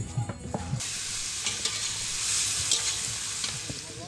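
Hands kneading and tossing raw chicken pieces in a spice marinade. A steady hissing, rustling noise starts suddenly about a second in.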